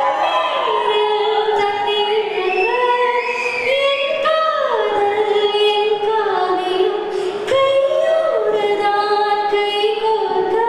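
A woman singing a Tamil song solo into a handheld microphone, holding long notes and sliding down in pitch between them.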